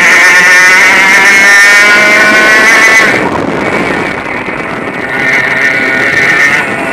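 Onboard sound of a 100cc two-stroke Easykart engine running high-pitched at full throttle. About three seconds in the note drops in pitch and level as the throttle lifts for a corner, then rises again as the revs build from about five seconds.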